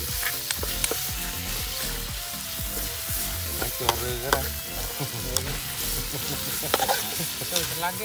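Food sizzling in a hot wok while a spatula stirs it, scraping and clicking against the metal.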